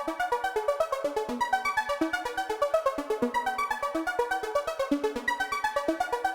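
Electronic background music: quick repeating synthesizer notes over a steady fast beat.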